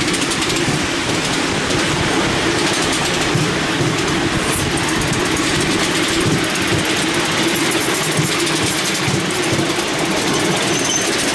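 Miniature steam railway train hauled by the miniature steam locomotive Gizelle 61003 running along the track, heard from a passenger seat on the train: a steady rumble with continuous irregular clatter.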